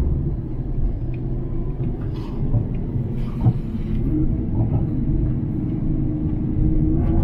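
Cabin noise inside a Nissan GT-R: its twin-turbo 3.8-litre V6 and the tyres make a steady low rumble at a light-throttle cruise of about 80 km/h on a cool-down lap. A steady engine note comes up about four seconds in and begins to rise near the end.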